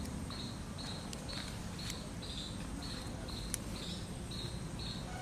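Cricket chirping in short high-pitched pulses, about two a second, with a few faint snaps as green chilli stems are broken off the plant by hand.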